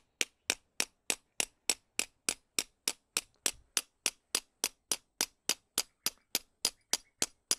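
A hammer striking a flush head sleeve anchor bolt, driving it into a drilled hole in rock. It lands quick, even, sharp metal blows, about three a second, with a faint short ring after the later strikes.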